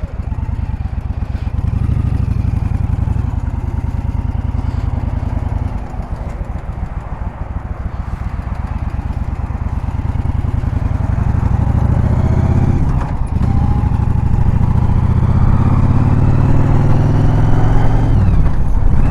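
Motorcycle engine pulling away and accelerating through the gears, its pitch climbing in each gear and dropping briefly at a few gear changes, under rising wind and road noise.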